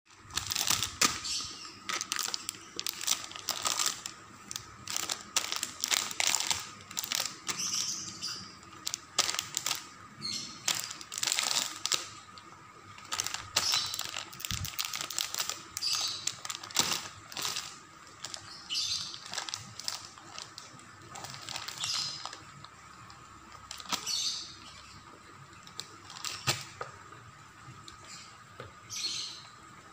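Soft plastic packaging crinkling and crackling in irregular bursts as a baby grabs, mouths and pats it on a plastic high-chair tray. The crinkling is busiest in the first half and grows sparse later on. A faint steady high hum runs underneath.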